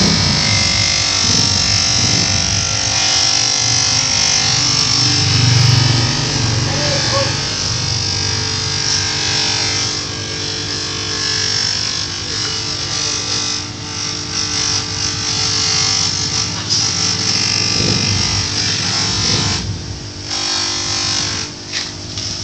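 Small bench grinder running steadily, its wheel grinding and polishing a kukri's wooden handle and metal bolster, a motor hum under a high hiss of abrasion. It briefly drops out near the end.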